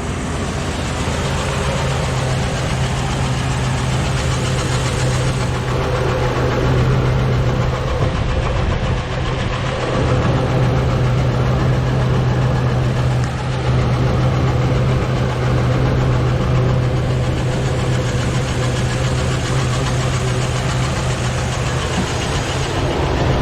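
Chevy 2500HD's 6.0-litre V8 idling steadily, with the engine noise the owner is trying to trace, which he later describes as a huff and a puff and a little bit of knocking.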